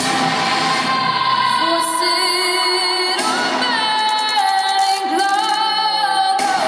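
Wrestling entrance music with a woman's voice singing long, held notes.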